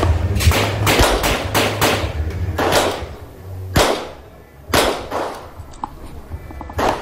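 Revolver gunshots in quick strings: a rapid run of shots in the first three seconds, then single shots spaced about a second or more apart.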